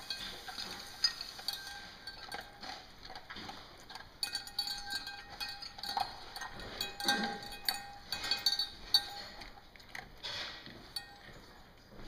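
A pointer-mix dog eating from a stainless steel bowl: irregular clinks and knocks as its muzzle pushes the metal bowl, which rings after each knock.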